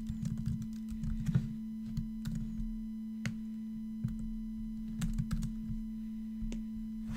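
Computer keyboard typing, keystrokes clicking in irregular bursts, over a steady low sine tone from a ChucK SinOsc oscillator playing through the computer's output.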